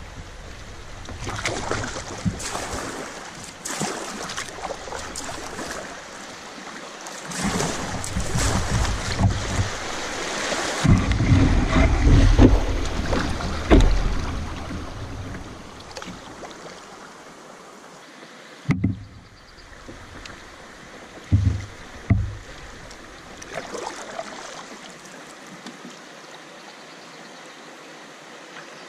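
Kayak paddling on a river: paddle strokes and splashing water, with low rumbles through the middle, then a sharp knock and two dull thumps a couple of seconds later.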